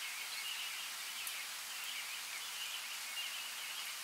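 Steady rain hiss, with faint high chirps recurring every second or so.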